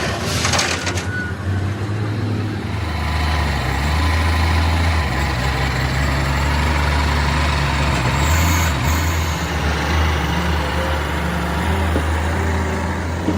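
A motor vehicle's engine running close by, a steady low drone, with street traffic noise around it.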